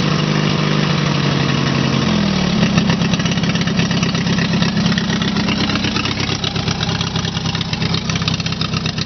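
18 hp Briggs & Stratton V-twin engine of a Scotts riding mower running with its muffler removed, open exhaust. About two seconds in the steady note shifts and it goes on with a choppier, pulsing beat.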